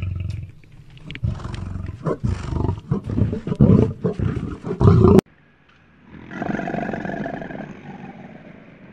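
Lion roaring in a series of deep, rhythmic grunts that cuts off suddenly about five seconds in. After a short gap, a quieter and steadier sound with held tones follows.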